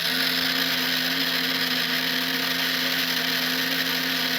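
Loud, steady electric whirring with a held buzzing tone, set going by flipping a switch on the Fanhome Ecto-1 model.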